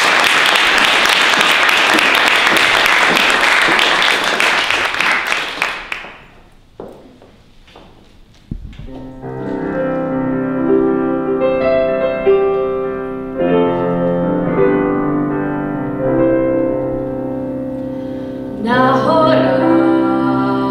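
An audience applauds for about six seconds. After a short pause a digital piano plays an introduction, and near the end a young woman starts singing over it.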